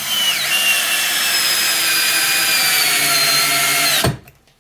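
WORKPRO 12V cordless drill boring into a block of wood: a steady motor whine over the bit cutting through the wood, its pitch sinking slowly as it works under load. About four seconds in the trigger is released and the motor winds down and stops.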